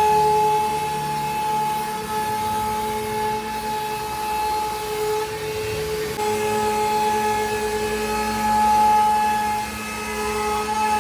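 CNC router spindle running with a steady whine while its bit cuts into wood, the pitch and load shifting slightly a couple of times as the cut goes on.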